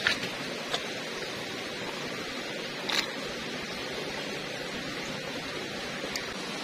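Shallow stream running steadily over pebbles and stones. A few short, sharp splashy sounds break through, the loudest about three seconds in, as a man drinks with his mouth straight at the water's surface.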